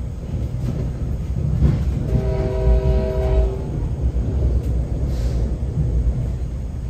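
Leslie K5LA five-chime air horn of an NJ Transit PL42AC diesel locomotive, its restrictor removed, sounding for a grade crossing. It is heard from inside a coach further back in the train: one blast of about a second and a half, about two seconds in, over the steady rumble of the coach running on the rails.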